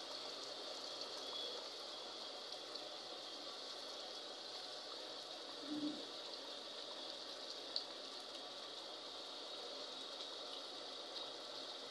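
Chicken karahi gravy bubbling and simmering steadily in an aluminium pot, with one faint click a little after the middle.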